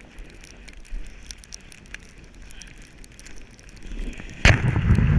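Sled sliding fast over snow, with scraping and crackling against the camera, then about four and a half seconds in a sudden loud knock and a second or so of heavy low buffeting as the sled hits a rock and the rider and camera tumble into the snow.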